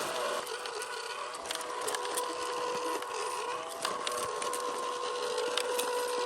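Electric motor and gearbox of an MN128 1/12-scale RC Jeep crawler whining steadily, its pitch rising and falling a little with the throttle, with scattered sharp clicks and snaps of twigs and stones under the tyres.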